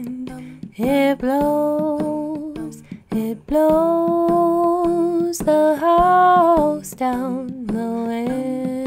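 A woman humming a wordless melody in long held notes with a slight waver, over a softly plucked acoustic guitar: the instrumental-and-humming intro of an acoustic folk song.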